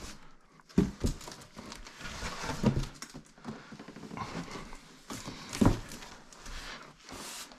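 Large cardboard box holding a heavy Atlantic Technology SBT-1000 subwoofer being tipped over by hand: cardboard scraping and creaking, the cloth-wrapped speaker shifting inside, with a few knocks, the loudest about two-thirds of the way through.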